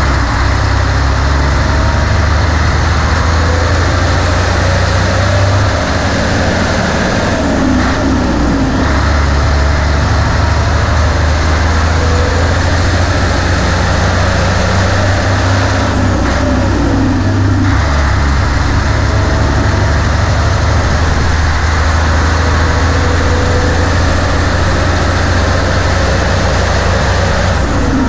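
Nissan Diesel KG48U truck crane's 12.5 L PF6TB turbocharged intercooled diesel engine pulling hard on the road, with a faint high whine climbing in pitch as it revs. The drone breaks off twice, about seven and sixteen seconds in, as gears are changed on the manual gearbox, then picks up again.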